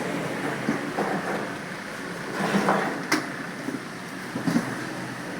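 Keystrokes on a computer keyboard during a timed typing test, over a steady background noise, with a few louder knocks about two and a half, three and four and a half seconds in.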